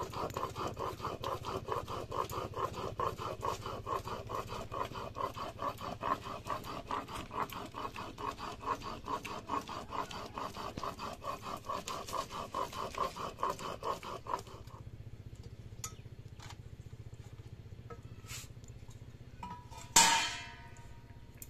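Rhythmic scraping of a cooking utensil, several strokes a second, stopping about fifteen seconds in. Near the end comes one loud metallic clang that rings on briefly.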